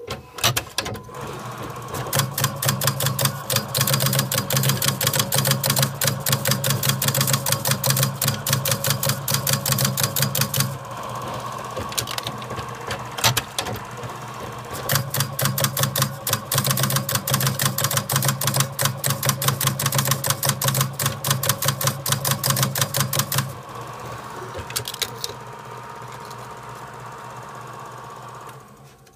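Automatic dog tag embossing machine stamping characters into stainless steel tags: a rapid, typewriter-like run of sharp strikes over a steady motor hum. The stamping comes in two long runs separated by a short lull. Near the end only the hum goes on, with a couple of last strikes.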